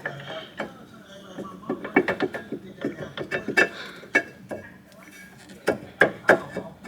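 Irregular metallic clicks and clanks of brake pads and hardware being worked into a six-piston Wilwood caliper, with a cluster of sharper knocks near the end.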